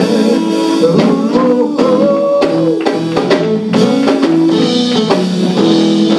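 Live gospel band music: electric guitar and drum kit playing a bluesy groove as the song is brought home.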